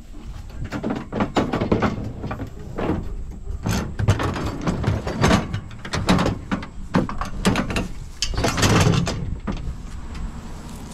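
A metal-framed treadmill being shoved and lifted into a pickup truck bed: repeated clanks, bumps and scrapes of metal against metal, loudest near the end.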